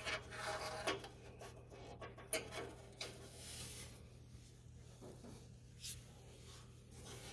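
Small metal parts clicking and scraping as a furnace flame sensor is fitted back into place by hand, with a longer rasping rub a few seconds in, over a steady low hum.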